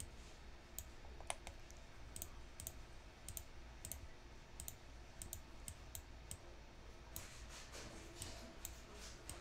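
Faint computer mouse clicks, about two or three a second, over a low hum.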